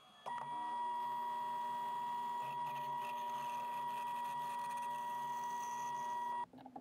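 Bandsaw running with its blade cutting through a wooden block: a steady motor whine with a haze of sawing noise over it. It starts abruptly just after the start and cuts off suddenly near the end.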